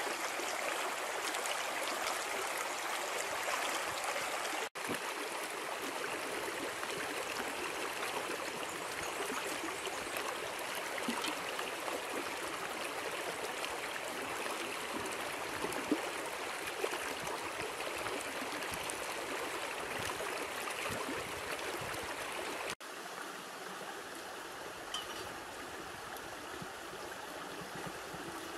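Water of a stream running steadily, an even rushing sound. It cuts out for an instant twice, about 5 and 23 seconds in, and is a little quieter after the second break.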